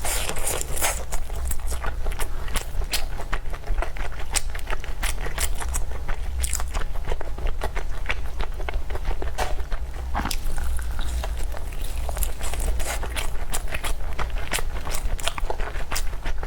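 Close-miked eating: chewing and biting into food, a dense irregular run of sharp, wet clicks and crackles, over a steady low hum.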